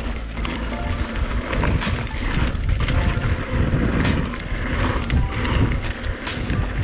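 Mountain bike ridden over a rough dirt trail: a steady rolling rumble from the tyres with frequent irregular knocks and rattles from the bike as it hits bumps.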